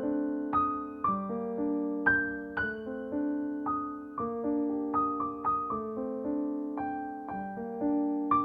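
Gentle background music on a piano or electric piano, notes struck about twice a second and left to ring and fade.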